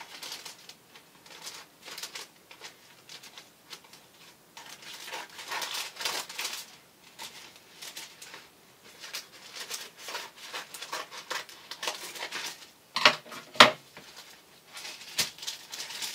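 Scissors snipping through greaseproof paper, with the paper crinkling as it is handled; two sharper clicks stand out about three-quarters of the way through.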